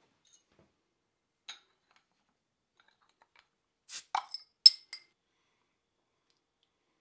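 Hand-forged mild steel bottle opener prying the cap off a glass bottle: a quick cluster of sharp metal-on-glass clicks and clinks about four seconds in, the loudest a ringing clink near the end of the cluster.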